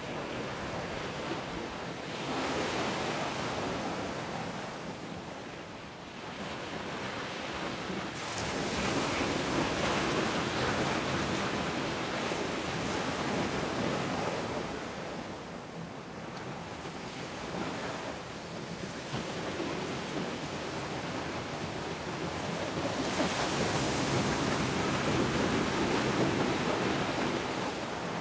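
Pacific Ocean surf: waves breaking and washing up the shore, a steady rushing hiss that swells and ebbs in slow surges several seconds apart.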